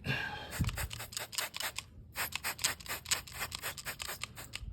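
Hand trigger spray bottle squirting soapy water onto a tyre to check for leaks, a quick run of short sprays with a brief pause about two seconds in.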